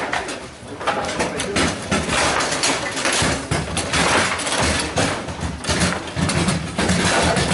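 Table football play: a quick, irregular series of sharp knocks as the hard ball is struck by the figures and bangs against the table walls, with the metal rods clacking in their bearings.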